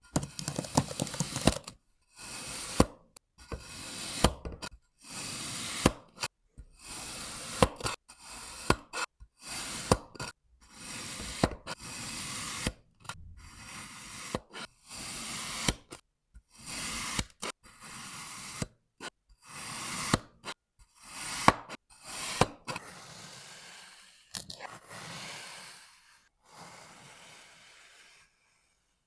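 Kinetic sand being cut: a series of crisp, crunchy slicing strokes, roughly one a second, many opening with a sharp tap. Near the end the strokes give way to a softer, longer scraping.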